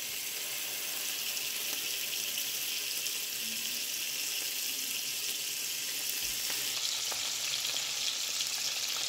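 Salmon steaks frying in hot oil in a frying pan: a steady sizzle.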